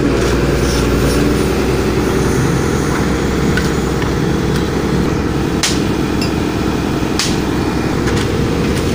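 Steady low diesel-engine rumble from heavy equipment and traffic, with sharp clinks of a steel digging bar jabbed into gravel, the two loudest in the second half.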